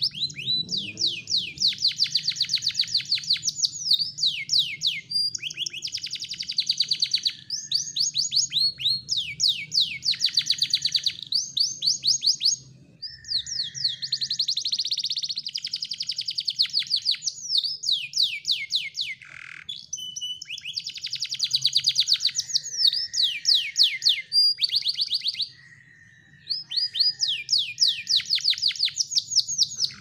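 Canary singing a long song of rapid, high trills, each phrase a fast run of repeated downward-sweeping notes, with a few short pauses between phrases.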